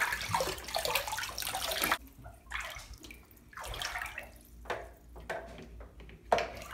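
Bathtub water sloshing and splashing as a toy kayak is pushed through it by hand; after about two seconds it drops to quieter, uneven lapping.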